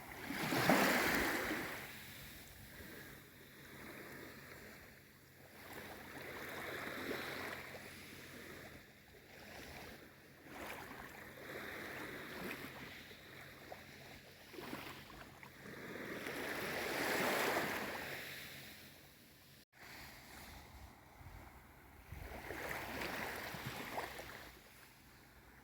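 Small waves of a calm sea washing in and lapping, swelling and ebbing about every five to six seconds, the loudest about a second in. The sound cuts out for an instant a little past the middle.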